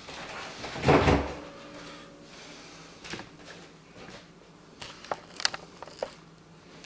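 Handling noises from working cables inside a PC case: a brief rustle about a second in, then a few light clicks and taps.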